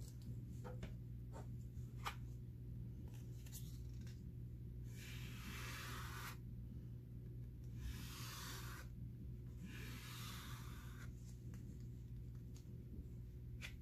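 Clear tape being laid and rubbed down by hand over a stencil sheet: three scratchy rubbing passes of about a second each near the middle, with a few light clicks between them, over a faint steady low hum.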